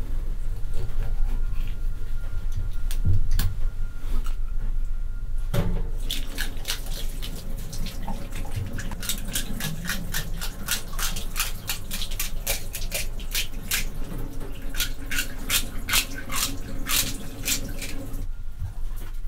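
Tap water pouring into a gutted fish's belly cavity and splashing, with rapid scratchy strokes as a bundle of bamboo skewers scrubs out the bloodline. This starts about five seconds in, after a quieter stretch of handling sounds with a few soft knocks, and eases off near the end.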